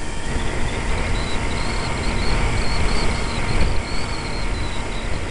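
Multiplex EasyStar's electric motor and pusher propeller whining steadily in flight, the pitch wavering slightly, heard from the onboard keyfob camera, with wind buffeting the microphone as a heavy rumble underneath.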